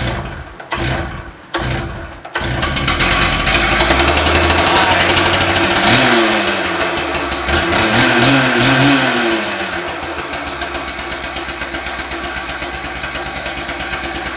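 Stihl TS 800 cut-off saw's two-stroke engine pull-started on choke: three quick pulls of the recoil starter, and on the third it catches and runs. It revs up and down a few times, then settles to a steadier, lower run.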